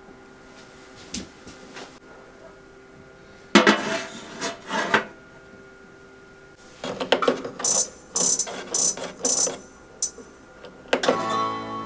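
A metal muffin tin clattering as it is slid into an oven, then a run of about four short high beeps as the Balmuda oven's dial is turned to set temperature and time, and near the end a sustained electronic tone as the oven is started.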